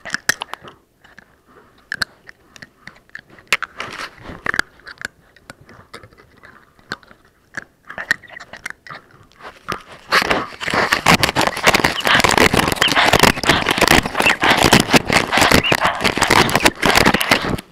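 Puppies biting and chewing on a plastic action camera right against its microphone: scattered sharp clicks and crunches at first, turning about ten seconds in into loud, dense, continuous crunching and scraping.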